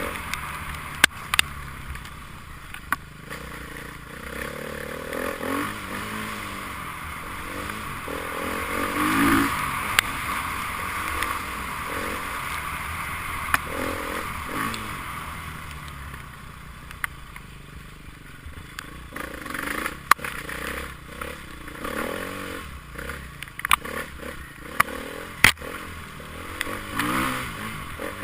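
Enduro motorcycle engine revving up and down, its pitch rising and falling repeatedly, with scattered sharp clicks and knocks.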